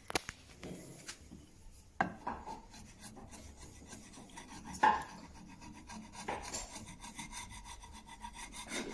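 A steel chisel scraping and paring paint off a painted wooden table edge. It makes a few sharp scraping strokes, the loudest about five seconds in, followed by a run of small quick scrapes.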